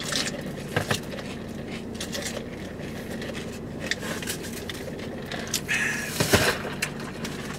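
Eating sounds: chewing, a sip through a drinking straw, and scattered clicks and scrapes of fast-food containers being handled, over a steady low hum. A louder, noisier scrape or rustle comes near the end.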